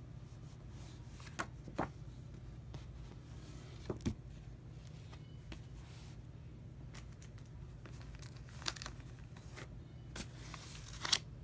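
A vinyl record's paper inner sleeve and cardboard album jacket being handled: scattered rustles, slides and a few sharp taps over a low steady hum. The loudest rustle comes near the end, as the record in its sleeve is drawn out.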